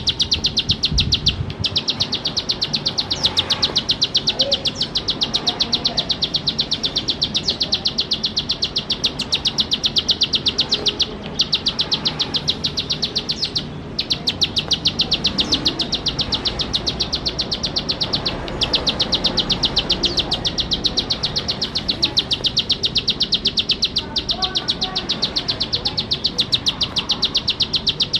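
Plain prinia (ciblek sawah) singing a rapid, dry ticking trill, many notes a second, in long runs of several seconds broken by brief pauses.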